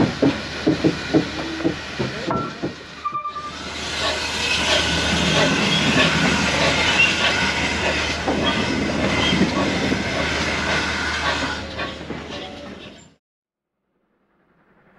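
Steam locomotive at a heritage railway station: a few seconds of rhythmic knocking, then from about four seconds a loud hiss of steam that fades and cuts off suddenly near the end.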